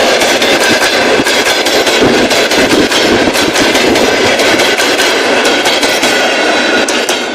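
Passenger train running loud, its wheels clattering and knocking over the rail joints in quick succession, under a steady high ringing tone.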